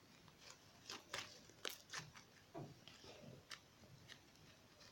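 Faint sticky clicks and pops of homemade glue slime being squeezed and pulled in the hands, about half a dozen scattered snaps.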